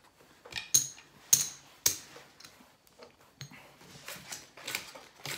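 Casino chips clicking against each other and playing cards being handled on a felt blackjack table: a handful of sharp, irregular clicks.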